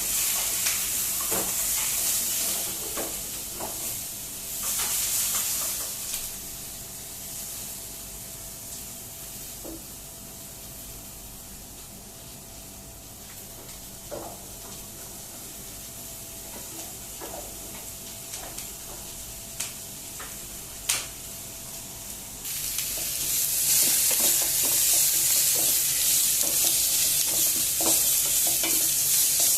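Food sizzling in a hot pan while it is stirred, with a few sharp knocks of a utensil against the pan. The sizzle comes and goes, dies down through the middle, then swells loud and steady about 23 seconds in.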